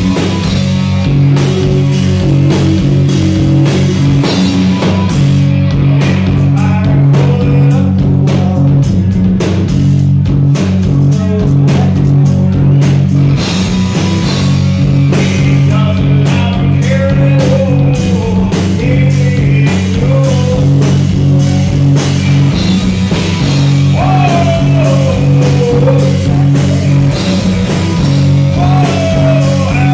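Rock band playing live, loud and bass-heavy: electric guitars, electric bass and drum kit, with a man singing lead, mostly in the second half.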